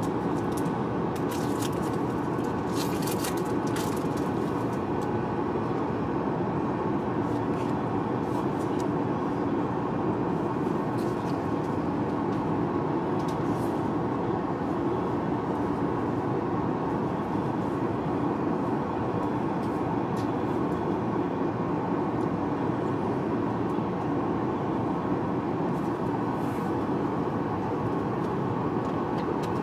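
Steady airliner cabin noise of jet engines and airflow at cruising altitude. Scattered small crinkles and clicks of a foil booster pack and trading cards being handled sit on top of it, more of them near the start and near the end.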